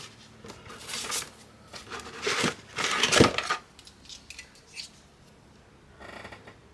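Clicks and clatter of hard plastic and metal computer parts being handled and fitted, in several bursts over the first three or four seconds, loudest a little after three seconds, then only a few faint ticks.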